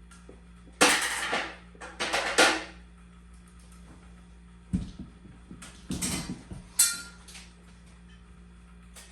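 Metal parts and tools clattering and knocking as they are handled, in several short irregular bursts, with a dull thud near the middle.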